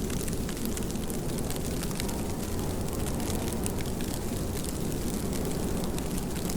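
Steady rain: an even, deep wash of sound with many scattered sharp ticks of drops striking.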